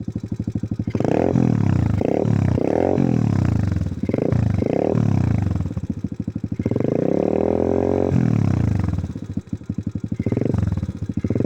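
Apollo RFZ 125 cc dirt bike's single-cylinder four-stroke engine idling and being blipped with the throttle. There are about five quick revs in a row, then one held for about a second and a half before it drops back to idle, and one more short blip near the end.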